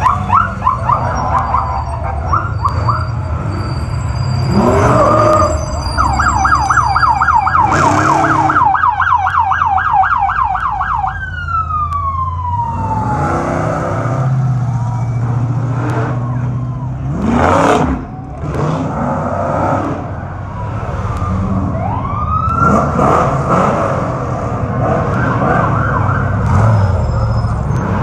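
Electronic sirens whooping and yelping, with a fast warble for several seconds in the middle that glides down and stops, then another whoop later on. Underneath is the steady rumble of off-road race truck engines rolling slowly past.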